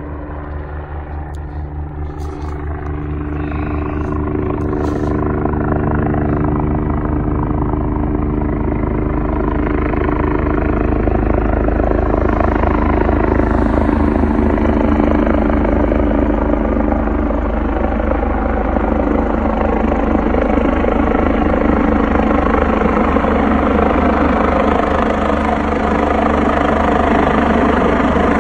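Helicopter approaching and descending to land, its rotor and turbine noise growing louder over the first few seconds and then holding steady, with a fast rotor beat under several steady tones.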